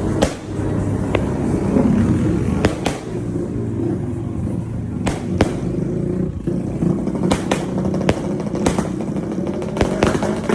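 Fireworks going off: about a dozen sharp bangs at irregular intervals over a continuous low rumble.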